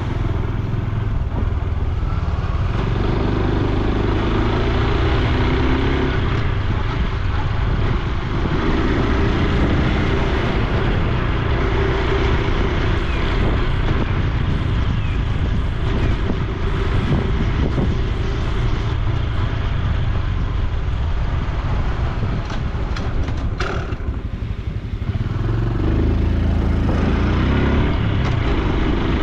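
Honda Super Cub C125's single-cylinder four-stroke engine and exhaust running under way, the engine note swelling and easing with the throttle. It eases off briefly near the end, then picks up again.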